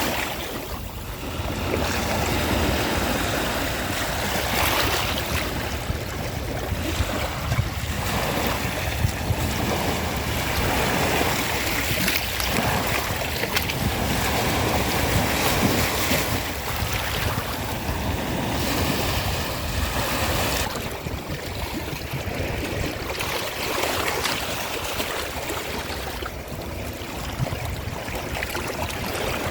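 Ocean waves washing onto a shore, a continuous rushing surf that swells and eases every few seconds, with some wind noise on the microphone.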